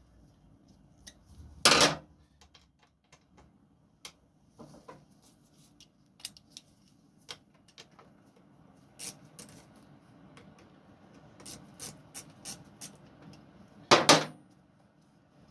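Hand tools and metal parts clicking and knocking while the front brake calipers are worked free of the fork, with two louder clatters, one near the start and one near the end.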